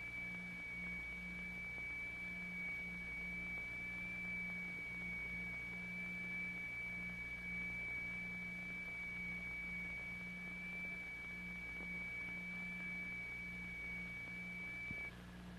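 Two electronically generated tones of slightly different frequency sounding together, so that the low note throbs in a regular beat; a thin steady high tone runs alongside and cuts off near the end.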